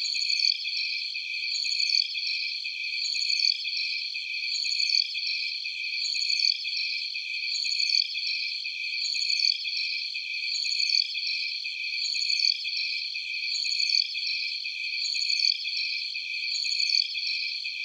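Alien-jungle night ambience of dense, high-pitched insect trilling in several steady layers, with no low sound at all. A short falling chirp repeats over it about every second and a half.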